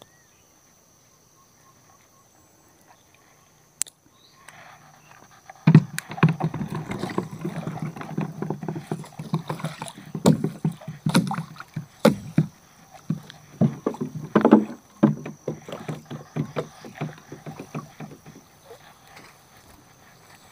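Gill net being hauled by hand into a small river boat: irregular splashing and dripping water with knocks of net and fish against the hull. It starts about four seconds in after a quiet stretch and eases off near the end.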